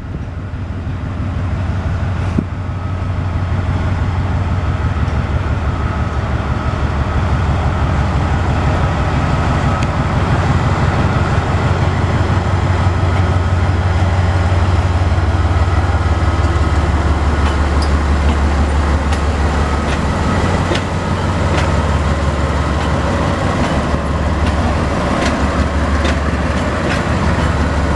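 Transnet Class 43GE diesel-electric locomotives approaching and passing close at low speed, the deep steady drone of their diesel engines growing louder over the first ten seconds and staying loud. Scattered sharp clicks come in over the second half.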